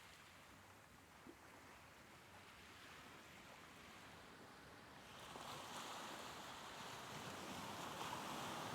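Soft ocean waves: a faint, even wash of surf that swells as a wave rolls in about five seconds in.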